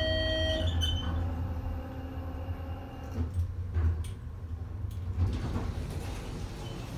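ThyssenKrupp Synergy traction elevator car: a short electronic chime of several tones sounds at the start, then a steady low hum in the car with a few clunks about three to five seconds in.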